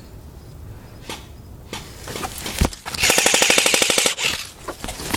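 Electric airsoft gun firing a rapid full-auto burst of about a second, about three seconds in. A few scattered clicks and a dull thump come before it.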